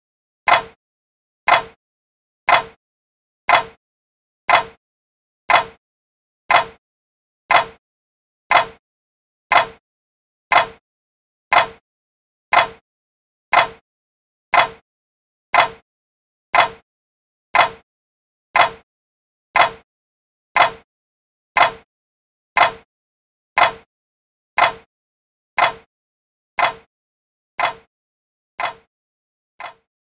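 Clock ticking steadily, one sharp tick a second, with silence between ticks. The ticks fade away over the last few seconds.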